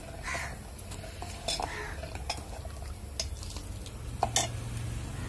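A steel ladle stirring milky rice kheer in a steel pot, scraping and clinking against the pot's sides now and then.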